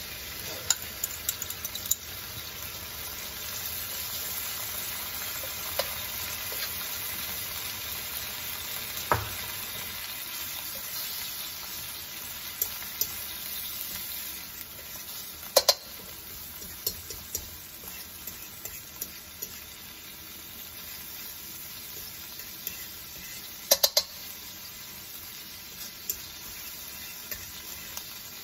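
Beaten egg sizzling in hot sesame oil in a metal wok, being scrambled with a fork. The frying hiss is steady, a little louder in the first half, and the fork strikes the pan with sharp clicks a few times, most sharply about halfway through and near the end.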